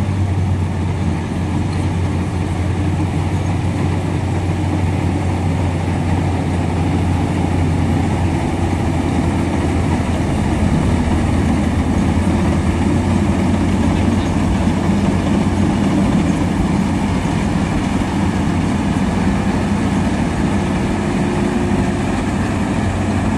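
Maxxi Bimo NDR 102L rice combine harvester running steadily while harvesting rice: a continuous engine and machinery drone with a strong low hum.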